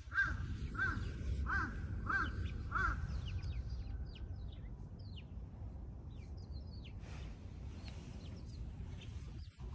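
A crow cawing in a steady series of short caws, about one every 0.6 seconds, that stops about three seconds in; faint short high bird chirps follow.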